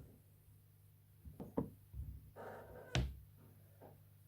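A few light knocks and clicks of handling, with a short rustle just before the sharpest click about three seconds in.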